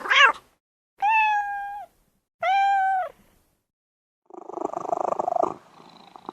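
Cat meowing: a short rising meow, then two longer, high, fairly level meows that drop at the end. About four seconds in, a rougher, rapidly pulsing cat sound follows for just over a second, then a few faint clicks.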